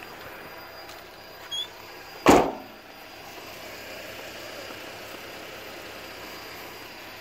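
A single brief thump about two seconds in, over a faint steady outdoor background, with a short faint chirp just before it.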